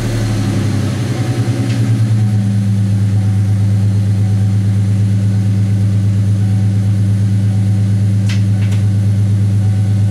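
Ford Mustang engine idling just after being started, wavering for the first couple of seconds and then settling into a steady, even idle. Two short clicks about eight seconds in.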